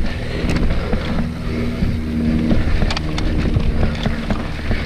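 Mountain bike riding fast over rough trail: a steady rumble of tyres and wind on the microphone, with many sharp rattles and knocks from the bike going over bumps.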